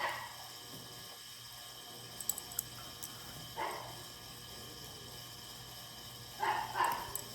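Scissors snipping an X into the covering material on a light switch plate, a few sharp little clicks, with brief rustling as the material is handled.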